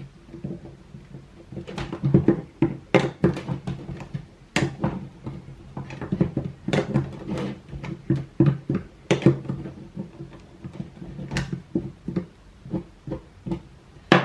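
Irregular clicks and knocks of a skate tool and skateboard parts being handled while the wheels' axle nuts are set.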